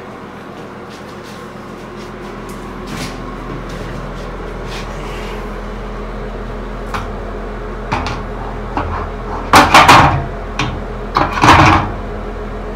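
Glass sliding shower door panel being hung on the metal frame's top track: a few light knocks, then two loud scraping clunks near the end as the door's rollers go onto the rail.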